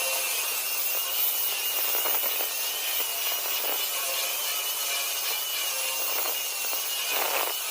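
Power tool cutting a socket-box hole into a concrete wall: a steady, harsh cutting noise under a continuous high motor whine.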